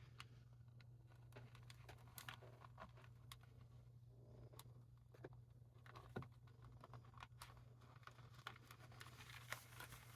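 Near silence: a low steady hum with faint, scattered small clicks and taps, a slightly sharper one about two seconds in and another about six seconds in.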